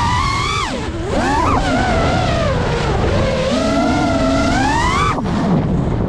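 FPV quadcopter's brushless motors whining, their pitch sliding up and down with the throttle and falling sharply about a second in and again near the end as the throttle is chopped, over a low rush of prop wash and wind.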